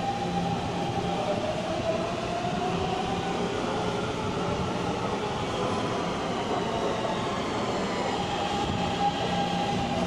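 Taipei MRT Bannan line train arriving along an underground platform: a steady rush of wheels on rail, with an electric motor whine whose tones glide up and down in pitch in the middle and settle again near the end.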